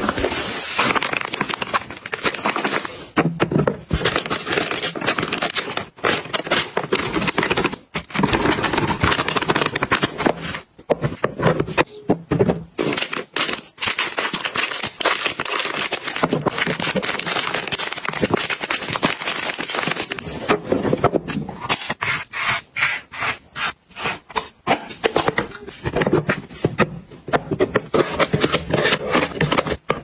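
Close-up packaging handling: a cardboard box and plastic-wrapped items crinkling, rustling and scraping as they are unpacked and tipped into a plastic storage box, with small knocks of plastic. The sound comes in short edited stretches that cut off abruptly.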